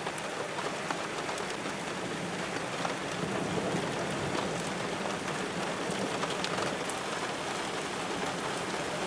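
Steady rain falling, with scattered sharp drop hits, mixed with the rush of muddy flood water running down a street. A slight swell in loudness in the middle.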